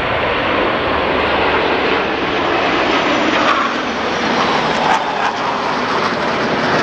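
Jet engines of a large formation of military fighter jets flying past, a loud, steady rushing noise that holds without break.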